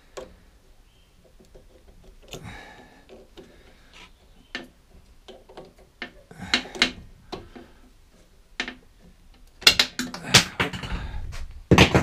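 Scattered clicks, knocks and rattles of pliers and small metal parts being handled at a petrol lawnmower's carburettor, with louder clusters of sharp clicks about two-thirds through and near the end.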